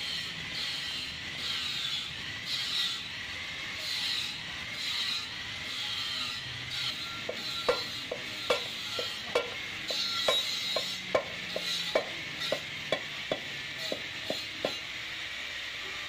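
Hammer strikes on an aluminium alloy car wheel rim, beating out a heated dent to bring the rim back into shape. The sharp, ringing knocks start about halfway through and come roughly two a second, over a steady high hiss.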